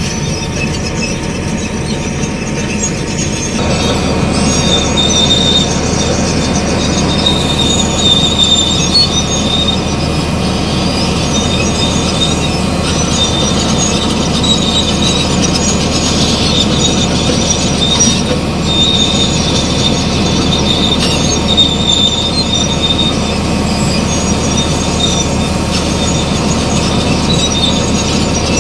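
Heavy diesel earthmoving machinery running steadily, with a high metallic squeal, like crawler tracks, that comes and goes over the engine rumble. The sound steps up slightly about three and a half seconds in.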